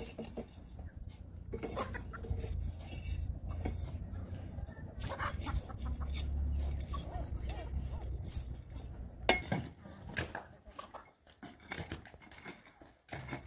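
Scattered clinks and knocks of kitchenware being handled over a low rumble, with one sharper knock about nine seconds in.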